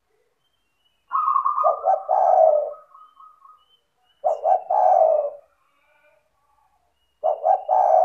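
Spotted dove cooing: three coo phrases about three seconds apart, each a quick run of low notes. The first phrase opens on a higher held note.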